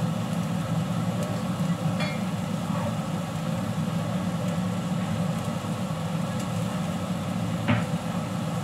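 Steady low hum and rush from the gas stove, with the wok on its lit burner, and a couple of light knocks about two seconds in and near the end.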